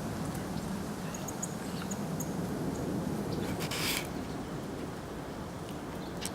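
Steady low rumble of a cargo jet flying low overhead, with a brief rush of hiss about four seconds in. A few short, high bird chirps sound faintly over it.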